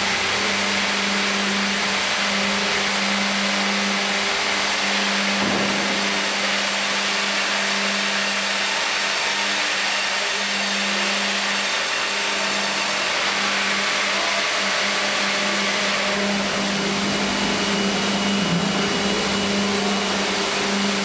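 Tandem band sawmill line with its hydraulic log carriage running: a steady motor hum with a hiss of machinery over it, the noise shifting slightly about sixteen seconds in.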